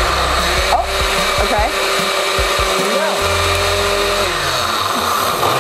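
Countertop blender motor running steadily on its frozen-drink setting, churning a thick pineapple and coconut-milk mixture whose pineapple chunks it is struggling to break down. Its sound changes about three seconds in.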